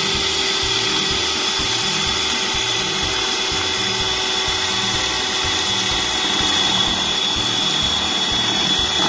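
Electric mixer running steadily at one speed, its beaters whipping a creamy mousse mixture in a bowl.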